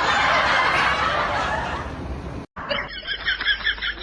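People laughing: loud laughter, then after an abrupt cut about two and a half seconds in, a high-pitched rapid laugh of about five short pulses a second.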